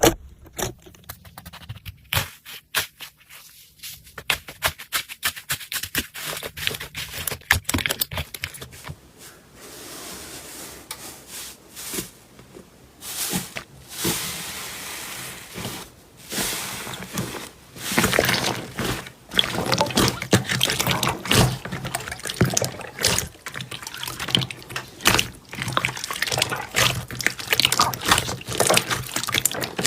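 Slime being squished, stretched and poked by hand: a dense run of wet clicks and pops, with smoother squelching stretches in the middle before the crackling picks up again.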